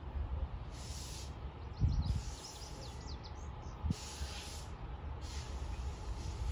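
Wind buffeting the microphone: a steady low rumble, with patches of hiss that start and stop abruptly several times. A heavy bump about two seconds in and a sharp knock about four seconds in.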